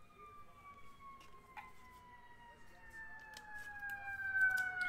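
A siren wailing, its pitch sliding slowly down and growing louder near the end, with a few faint clicks of cards being handled.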